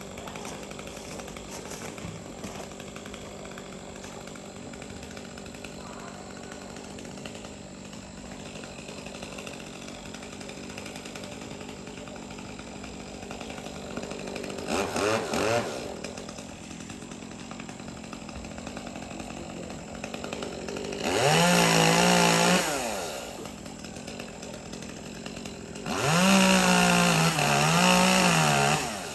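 Two-stroke chainsaw throttled up in three bursts over a steady lower engine drone: a brief rev about halfway, then two louder full-throttle runs of a couple of seconds each near the end, the pitch wavering up and down in the last one.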